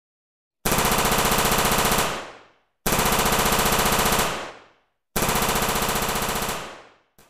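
Machine-gun sound effect: three bursts of rapid automatic fire, each about a second and a half long and tailing off, the first starting under a second in.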